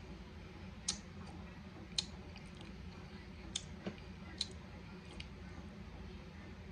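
Eating sounds while ice cream is tasted from a plastic spoon: about six small, sharp mouth and spoon clicks and smacks, scattered and irregular, over a faint steady low hum.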